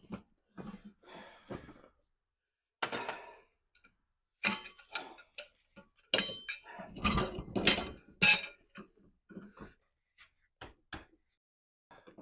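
Metal tools clinking and clanking against a manual tire changer and wheel rim in irregular knocks, busiest and loudest about six to eight seconds in, while a golf cart tire is worked on the rim.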